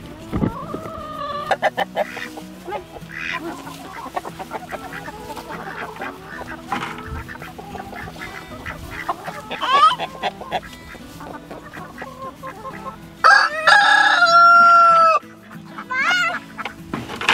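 Flock of laying hens clucking and squawking, with one long, loud call of about two seconds near the end.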